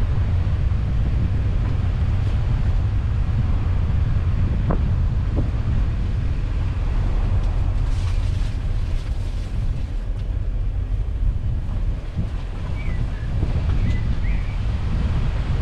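Car driving along a country lane: a steady low rumble of engine and tyres, with wind buffeting the microphone.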